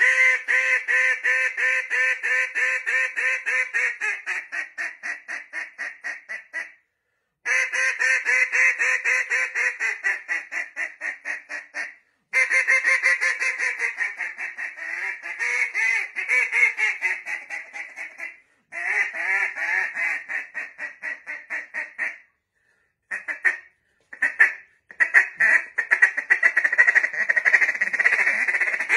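A mouth-blown duck call imitating a live hen mallard's quacking: runs of rapid quacks, about five a second, each run trailing off over several seconds, with brief pauses between, and shorter, busier bursts near the end.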